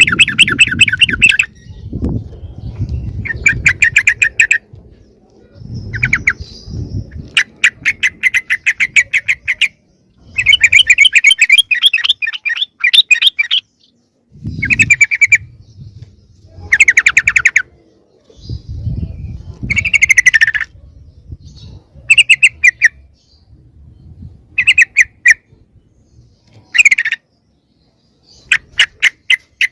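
Yellow-vented bulbuls (trucukan) giving noisy, agitated chattering calls: bursts of fast, rattling notes lasting one to three seconds each, repeated with short gaps. It is a lure call used to bring other wild bulbuls in close.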